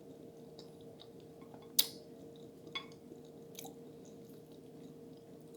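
Close-up chewing of cheesy lasagna, with small wet mouth clicks, a sharp click about two seconds in and a smaller one a second later, over a faint steady hum.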